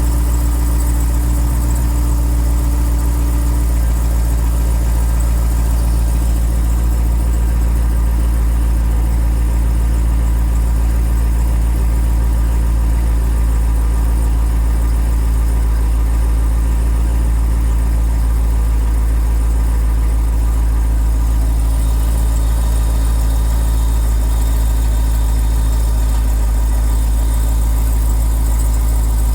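Jeep Grand Cherokee Trackhawk's supercharged 6.2-litre V8 idling steadily on a cold start, with a squeaky, tinkling noise over the idle that begins to fade about seven seconds in as the engine warms up.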